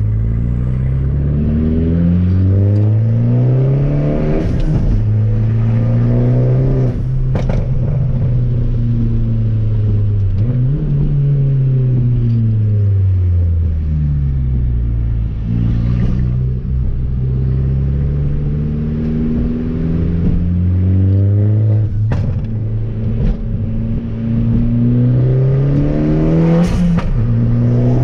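Fiat Abarth 500's turbocharged four-cylinder engine pulling through the gears. The revs climb and drop several times as it accelerates and shifts, with a few short knocks along the way.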